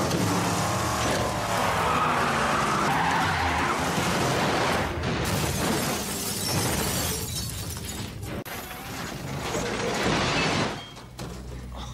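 Movie car-stunt sound mix: a muscle car's engine running and tires skidding as it slides sideways, with crashing, shattering sounds and music underneath. Loudest in the first half, easing off near the end.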